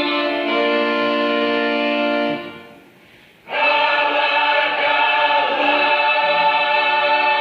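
Music of held chords with choir-like voices. It fades away about two and a half seconds in, and a louder passage cuts in abruptly about a second later.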